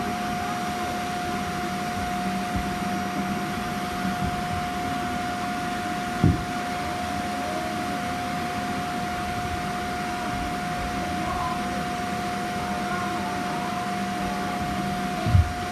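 Roomba robot vacuum running with a steady high whine over a low hum, with two short thumps, one about six seconds in and one near the end.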